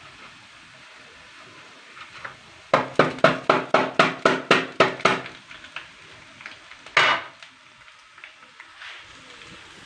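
A metal grater knocked against the rim of a frying pan about a dozen times in quick succession, four or five a second, each knock ringing briefly, then once more about two seconds later, shaking strands of besan dough into the hot ghee. A faint frying hiss runs underneath.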